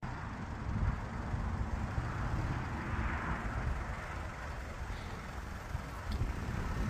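Daihatsu Fourtrak off-roader's engine running at low revs as it drives slowly down a sandy track, a steady low rumble.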